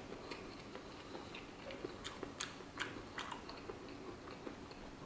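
A person chewing a mouthful of food, with faint short clicks scattered throughout.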